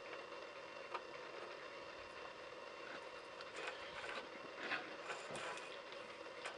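Faint scattered clicks and light knocks of small handling noises in a workshop, over a steady background hum.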